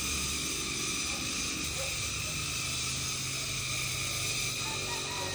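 Steady hissing outdoor ambience with a faint low hum underneath that shifts slightly in pitch about two seconds in.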